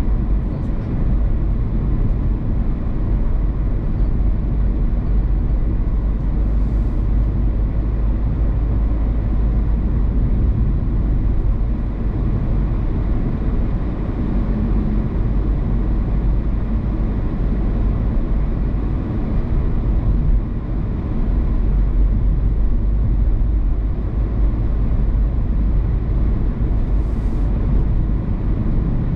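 A car driving along a road: a steady low rumble of tyre and engine noise.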